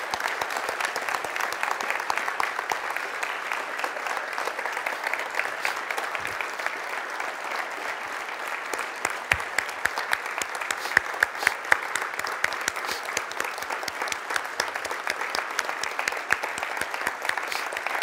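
A congregation applauding: many hands clapping steadily, with a few louder single claps close by around the middle.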